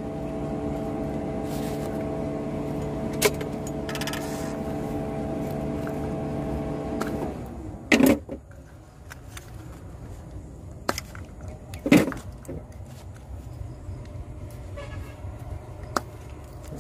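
A Suzuki Multicab's fuel-injected engine is turned over on its starter with the spark plugs out, for a spark test. It runs steadily for about seven seconds, then cuts off suddenly. Two sharp knocks follow, a few seconds apart.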